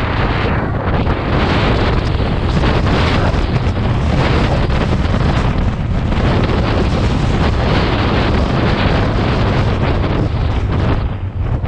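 Strong wind buffeting the microphone, a loud steady rushing noise with a brief lull near the end.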